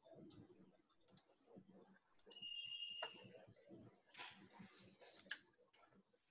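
Near silence broken by scattered faint clicks, a short high steady tone about two seconds in, and a brief rush of hiss about four seconds in.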